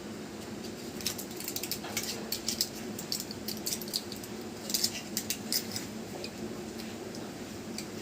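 A quick run of light clicks and clinks from small hard objects being handled, from about a second in until about six seconds in, over a steady low hum.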